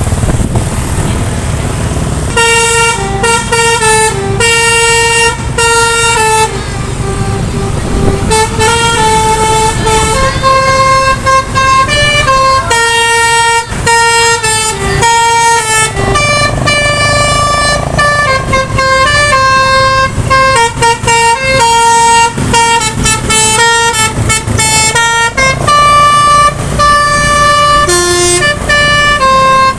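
Indonesian bus 'basuri' musical horn playing a tune, loud pitched notes stepping up and down one after another from about two seconds in, over the low rumble of the bus.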